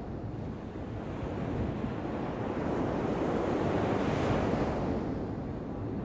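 Atlantic Ocean surf: a wave breaks and rushes in, swelling to its loudest about four seconds in and then washing back down, over a constant low rumble of surf.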